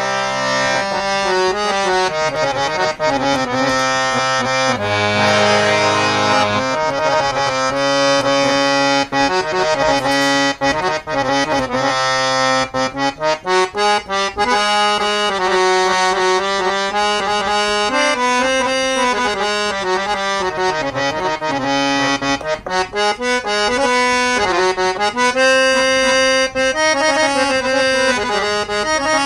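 Vertical harmonium with old Palitana reeds being played: a melody over held chords, with a full low chord about five seconds in and quick, detached notes from about eleven to fourteen seconds in.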